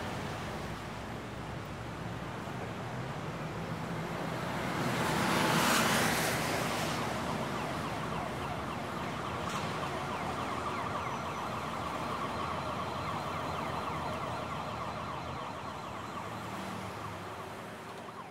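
Street traffic noise from the road below, with a vehicle passing loudest about six seconds in. A distant siren holds a steady high tone through the middle.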